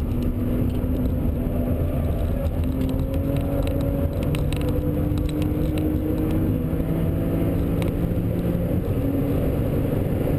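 BMW Z4 sDrive35is's twin-turbocharged inline-six engine running hard at track speed, heard from inside the cabin, its pitch climbing slowly, with tyre and wind noise underneath.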